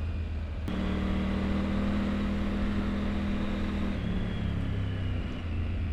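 Triumph Tiger 900 Rally Pro's three-cylinder engine running under way, growing louder and fuller about a second in as the throttle opens, then dropping slightly in pitch near the end.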